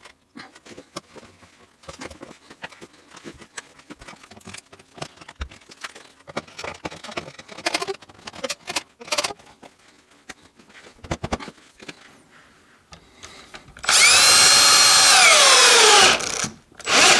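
Small clicks and knocks of handling parts, then a cordless drill/driver runs loudly for about two seconds, probably driving a screw into a wooden brace, its motor pitch sagging and falling away at the end as it bogs down: the battery is running low. A brief second burst follows just before the end.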